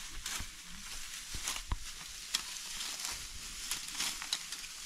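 Dry grain stalks crackling and rustling as they are reaped by hand with sickles and gathered, with irregular crisp snaps.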